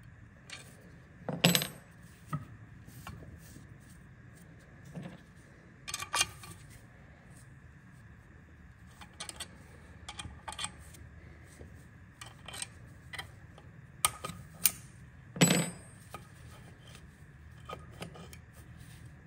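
Metal tools and parts clinking and clattering against each other at irregular intervals, with two louder ringing clanks, one near the start and one near the end.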